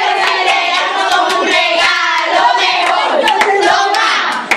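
A group of voices, children among them, singing a birthday song together, with hand claps sounding through it.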